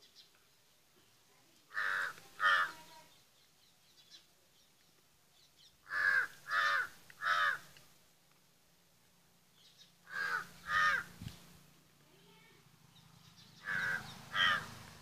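Short animal calls in groups of two or three, a new group about every four seconds.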